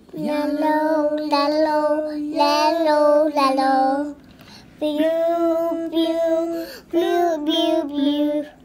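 A child singing a simple, repeated sing-song tune in two phrases, with a short pause about four seconds in.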